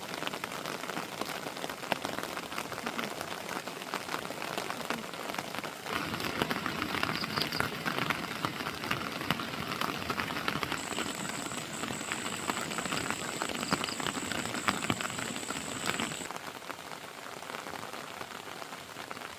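Heavy rain falling, its drops pattering on surfaces, heavier for about ten seconds in the middle and then easing. Partway through, a thin, steady high-pitched tone sounds for about five seconds over the rain.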